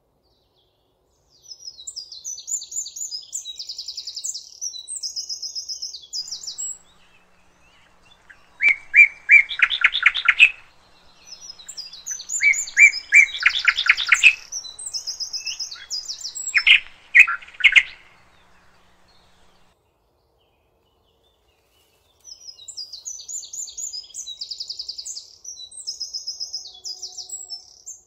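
Birdsong from two kinds of bird: a high, rapid, chattering song phrase repeated three times, and between them a lower, louder trilled phrase twice, with silent gaps between phrases.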